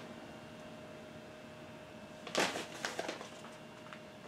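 Faint steady hum with a brief handling noise about two seconds in and a couple of fainter ones just after, as items are handled on the table.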